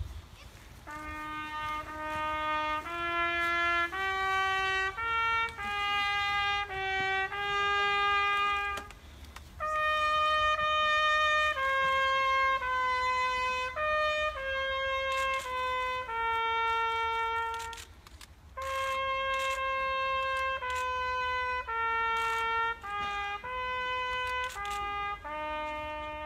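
Solo trumpet playing a slow melody of long held notes in three phrases, with a short break for breath between them.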